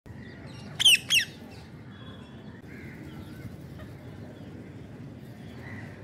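Rose-ringed parakeets calling: two loud squawks in quick succession about a second in, then only faint scattered calls from the feeding flock.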